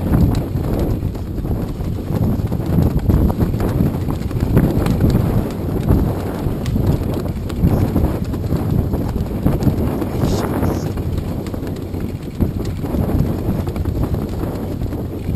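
Strong wind buffeting a GoPro's microphone on the open water: a loud, uneven low rumble that surges and eases, with many small knocks through it.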